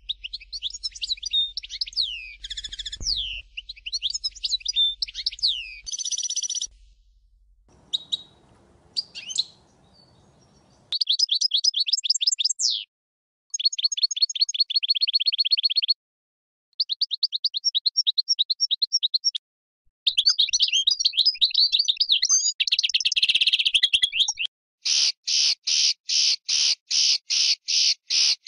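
European goldfinch of the Stieglitz Major type singing: fast twittering phrases of chirps and slurred notes, and two stretches of very rapid trills about halfway through. The song stops and restarts abruptly several times, and near the end it becomes a run of loud, evenly spaced notes, about three a second.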